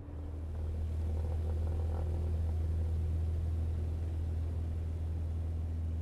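Twin-turboprop airliner's engines and propellers running steadily with a deep, even drone, building up over the first second.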